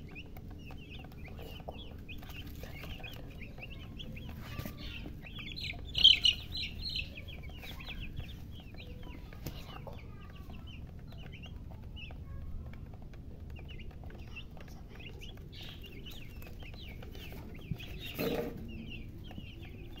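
A flock of young chicks peeping without pause, many short high cheeps that drop in pitch and overlap. They grow loudest in a burst about six seconds in. Near the end there is a brief, louder, lower sound.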